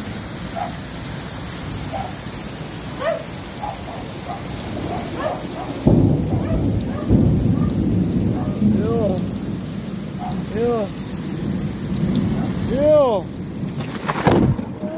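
Heavy rain falling steadily on pavement and roofs. About six seconds in, thunder breaks suddenly and rumbles on for several seconds, with another loud swell near the end.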